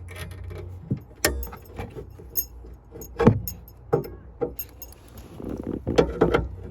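Irregular metallic clinks, knocks and rattles as a car jack is handled and tugged at in its side storage compartment, stuck and not coming free.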